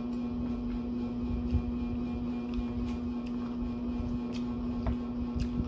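A steady low hum throughout, with scattered faint clicks and crunches of chewing raw greens and picking food up by hand.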